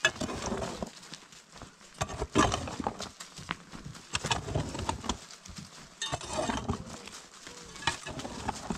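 Short-handled digging tool striking and scraping dry, stony earth, with loose soil and pebbles scattering; irregular knocks, the sharpest about two seconds in, with longer scraping, sliding stretches between them.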